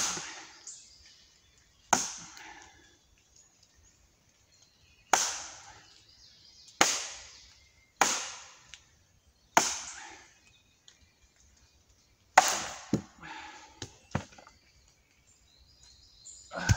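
Tramontina machete chopping into a wooden log round: about eight sharp strikes a second or three apart, each trailing off briefly, with a few lighter knocks near the end.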